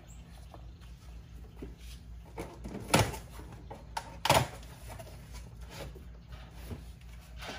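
Two sharp knocks a little over a second apart, about three seconds in, with a few fainter clicks, over a low steady hum.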